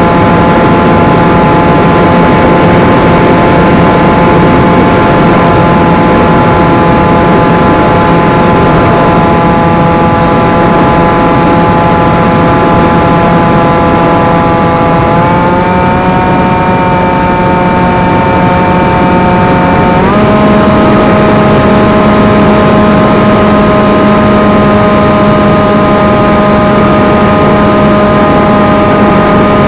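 Electric motor and propeller of a 1 m FPV flying wing, heard from the camera on board in flight: a steady, loud drone over heavy rushing wind. The pitch steps up slightly about halfway through and again about two-thirds of the way in, as the throttle is raised.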